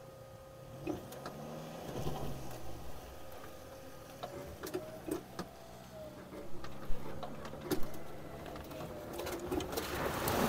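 Off-road vehicles running at a river crossing: a steady motor whine that rises and then falls in pitch over a low hum, with scattered clicks and knocks. Rushing water and wind noise swell near the end.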